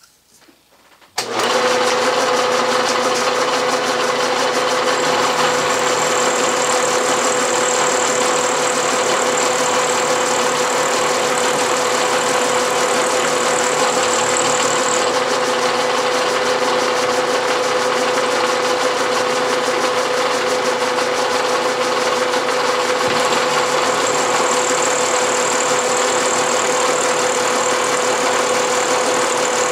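Vertical milling machine starting about a second in and then running steadily, its small end mill cutting a slot through the metal workpiece on a light finishing pass. A faint high whine comes and goes over the steady machine hum.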